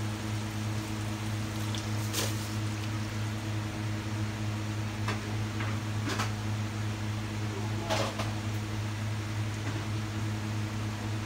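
A steady low electric hum from a running fan motor, with a few short pops from the sea cucumber adobo simmering in a wok, about two, six and eight seconds in.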